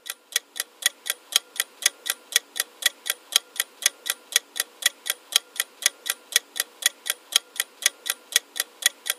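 Clock-ticking sound effect counting down the answer time on a quiz timer, a steady four ticks a second.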